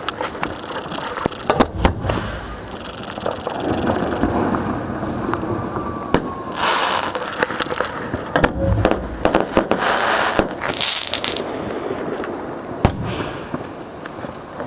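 Fireworks show heard from the firing barge: a quick run of sharp bangs from shells launching and bursting, with crackling and stretches of hissing in between.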